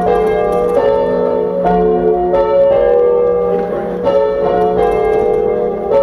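A ring of three church bells, the tenor in F, rung full-circle in turn (change ringing). Each strike rings on and overlaps the next, at about one stroke every half-second.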